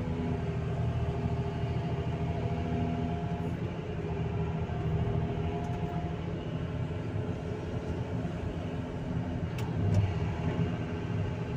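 Excavator's diesel engine running steadily under working load, a continuous drone with several held tones, as the bucket tips its load into a dump truck. About ten seconds in there is a heavier thump with a few clicks as the bucket digs into the heap of dug limestone and earth.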